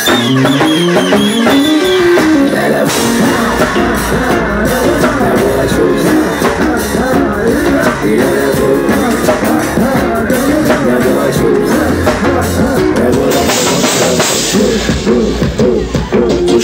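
Live band music played loud through a PA: drum kit and electric guitar with vocals over them, a rising pitch glide in the first couple of seconds.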